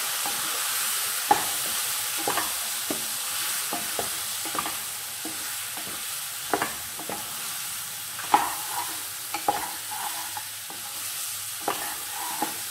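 Eggplant pieces sizzling in hot oil in a non-stick wok while a spatula stirs them. A steady sizzle runs under irregular scrapes and taps of the spatula against the pan, the sharpest about a second in and a little past the middle.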